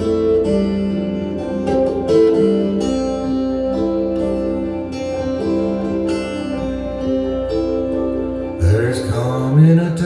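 Guitar-led song played over open-baffle hi-fi loudspeakers and heard in the listening room, with a rising pitch glide near the end.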